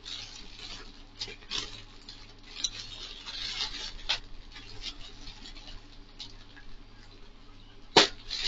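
Plastic packaging rustling and crinkling in irregular scrapes as items are handled, with one sharp knock near the end.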